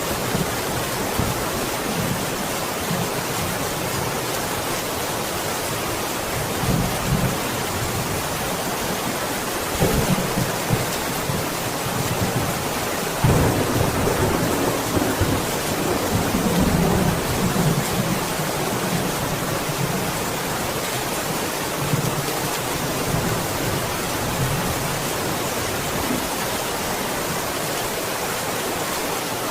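Steady heavy rain with distant thunder rumbling low several times, the strongest roll starting sharply about 13 seconds in and rolling on for several seconds.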